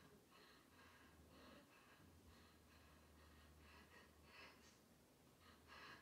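Near silence: faint room hum with soft, breathy rustling noises recurring a few times a second.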